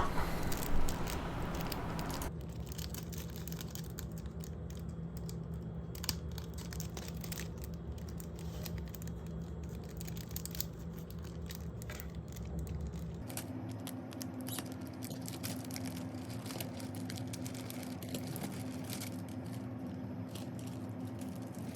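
Scattered small clicks and crinkling as the thin plastic and film parts of a rubber-band ornithopter toy are handled and hooked together, over a low steady hum.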